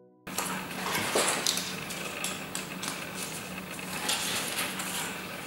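Light clicks, taps and clatter of small objects being handled on a work desk, over a steady low hum.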